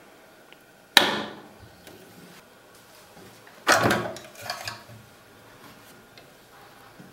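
Plastic parts of a Janome Green 19 sewing machine being handled: one sharp click about a second in, then a sliding scrape near the middle as the removable extension table is pulled off the free arm to open up the bobbin area.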